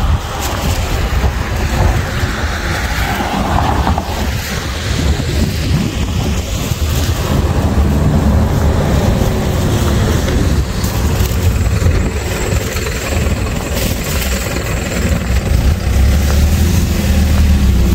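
Steady low rumble of wind buffeting a handheld phone's microphone, mixed with the hiss of car traffic on a wet road; it swells around the middle and again near the end.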